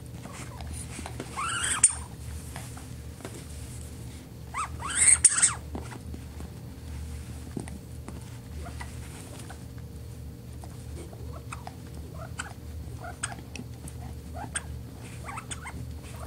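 Pomeranian chewing a rubber snowman squeaky toy. The toy squeaks with rising squeals twice, about a second in and again about five seconds in, and then the dog keeps gnawing on it with light, irregular clicks of teeth on rubber.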